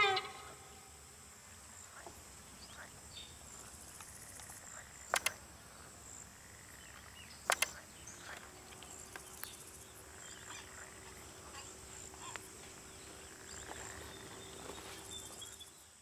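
Outdoor pond-side ambience with insects chirping in a steady, high-pitched buzz and faint scattered calls. Two sharp double clicks stand out, about five and seven and a half seconds in.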